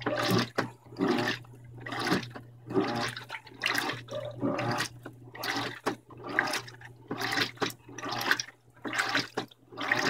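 Electrolux LDD16 top-load washing machine agitating, water and clothes sloshing around the tub in repeated surges about once or twice a second over a steady low motor hum, on a medium water level.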